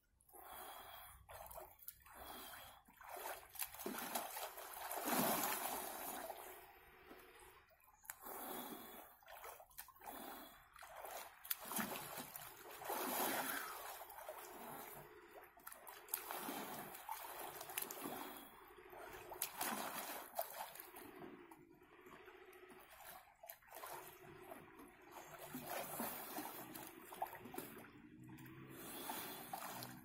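Water sloshing and splashing in an above-ground frame pool as a bather moves through it, coming in irregular surges.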